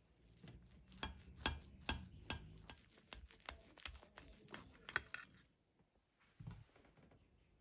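A knife and a metal cake server cutting through a stack of pancakes on a ceramic plate: an irregular run of sharp clicks and light scrapes of metal on the plate, two or three a second, for about five seconds. A single soft thump follows near the end as the slice is lifted out.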